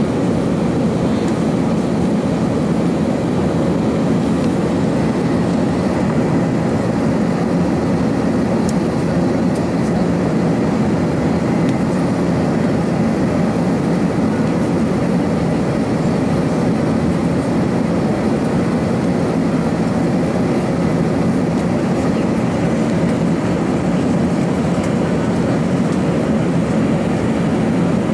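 Steady cabin noise inside an Airbus A380-861 in flight: airflow and the drone of its four Engine Alliance GP7270 turbofans, a loud, even, low rumble that does not change.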